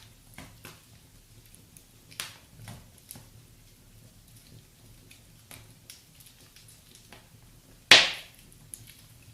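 Wood fire crackling: scattered small pops and snaps, with one loud sharp crack about eight seconds in.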